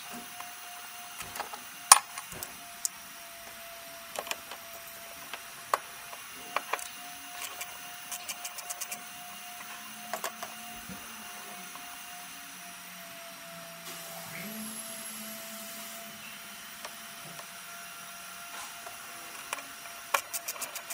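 Scattered clicks and knocks of hoses, clips and fittings being handled and pulled in a Ford Ranger 2.2 diesel engine bay, over a steady thin background hum. A fast run of even clicks starts near the end.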